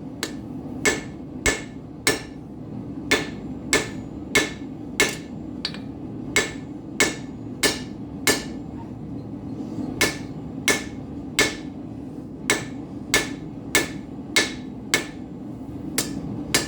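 Blacksmith's hand hammer striking hot steel on an anvil, drawing out the shank of a hand-forged nail. About one and a half to two steady ringing blows a second, with a short pause about halfway through, over the steady noise of the running forge.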